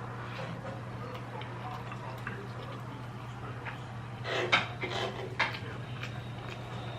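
Eating seafood at a table: light clicks and clinks of shells and utensils, with a cluster of louder sharp clicks about four to five and a half seconds in, over a low steady hum.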